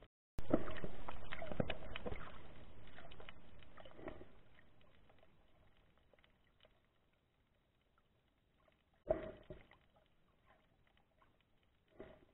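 Muffled underwater crackling and knocking picked up by a waterproof camera, starting suddenly about half a second in and fading away over the next few seconds, with two short bursts of the same later on.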